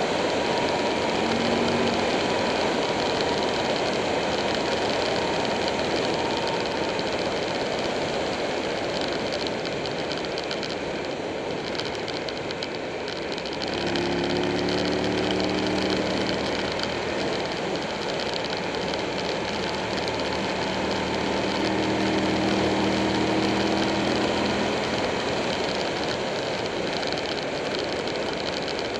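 Buell 1125R's V-twin engine running at road speed under a heavy rush of wind and road noise. About halfway through the engine note eases off briefly, then comes back and climbs a little as the bike pulls again.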